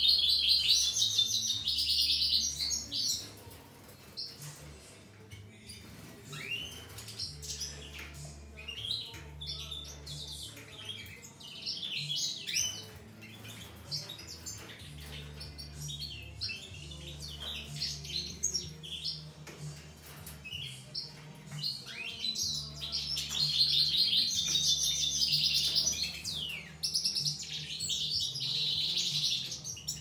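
Aviary goldfinches twittering and singing: long runs of fast, tinkling song in the first few seconds and again in the last several seconds, with scattered short calls in between.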